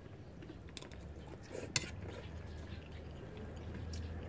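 Spoons and forks clinking lightly against plates and a pot during a meal: a few scattered sharp clicks, the loudest a little under two seconds in, over a low hum that grows toward the end.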